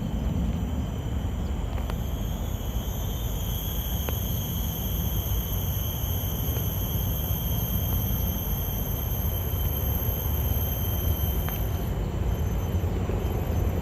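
Outdoor ambience: a steady low rumble with a continuous, even high-pitched insect drone above it, and a few faint clicks.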